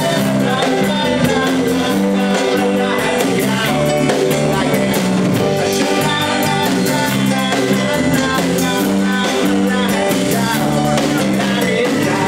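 Live rock-and-roll band playing: a man singing into a microphone over electric bass, drum kit and Hammond organ, with a steady beat throughout.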